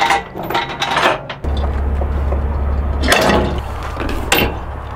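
Steel tie-down chains rattling and clinking as a mini excavator is chained down on a flatbed trailer, with a few sharper metal clanks as a chain binder is levered tight. A steady low rumble runs underneath from about a second and a half in.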